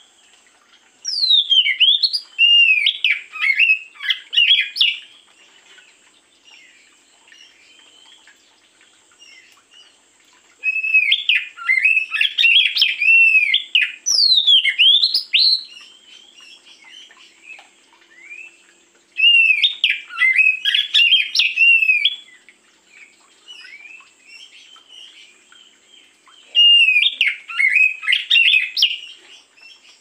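Oriental magpie-robin (kacer) singing: four loud bursts of rapid whistled phrases with sweeping rising and falling notes, separated by pauses of several seconds.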